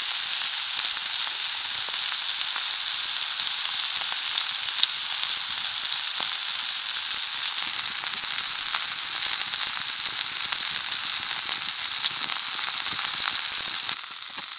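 Thick veal hamburger patty frying in butter in a very hot cast-iron pan: a steady, loud sizzle with scattered small pops. It turns abruptly quieter near the end.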